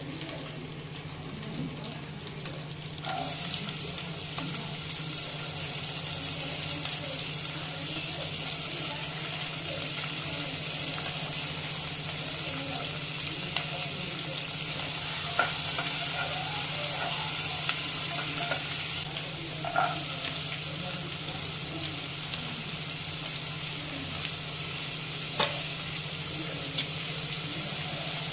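Chopped onions and green chillies going into hot oil in a pan about three seconds in and sizzling steadily from then on. A few sharp clicks and taps come as more vegetables go in and are stirred, over a low steady hum.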